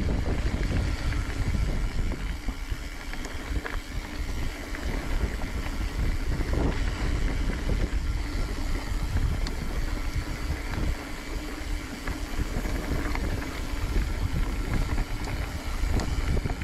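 Wind buffeting a helmet-mounted camera's microphone over the steady rumble of a mountain bike rolling along a dry dirt trail.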